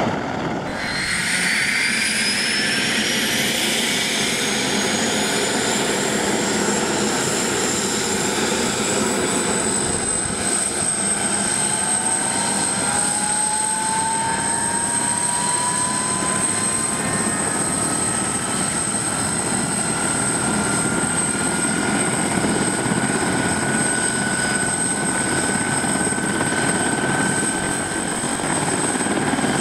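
Bell 412-type twin-turbine helicopter starting up: a turbine whine rises steadily in pitch for about ten seconds and then holds, while a second, lower whine keeps climbing slowly as the engines and rotor spool up. About a second in, the sound of a hovering helicopter cuts off.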